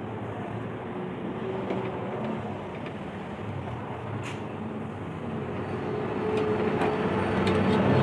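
Steady rumbling background noise that grows louder near the end, with a few faint clicks from a screwdriver working on the microwave oven's magnetron mounting.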